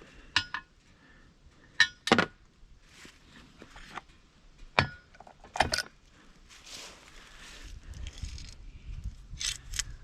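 Sharp metallic clinks and knocks, about six of them spread through the first six seconds, from chainsaw parts and tools being handled during a chain change. A low rumbling handling noise follows near the end.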